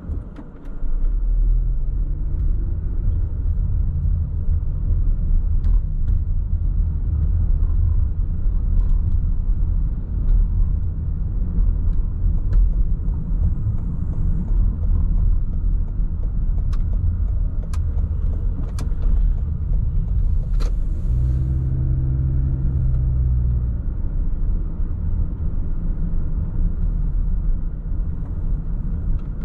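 Car driving, heard from inside the cabin: a steady low rumble of engine and road noise. An engine hum stands out for a couple of seconds past the middle, and a few sharp clicks come shortly before it.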